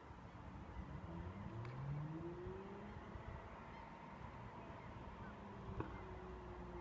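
Faint, distant engine of a Lotus Evora S (supercharged V6) rising in pitch as it accelerates, then holding a steady note. A single sharp click near the end.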